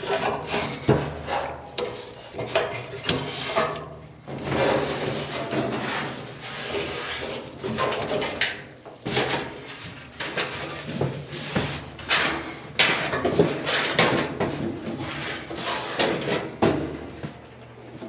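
Dryer parts and panels being handled and reassembled: irregular knocks, clunks and scraping of metal and plastic pieces, some sharp bangs among them.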